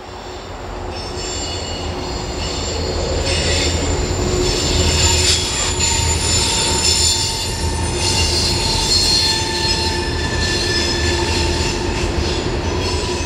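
Freight train rolling past with its wheels squealing on the rail: several high, steady squeals that come and go over a low rumble. The sound fades in at the start.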